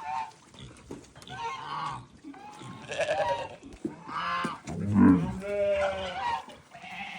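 Goats bleating, about half a dozen wavering calls one after another at the feeding pen.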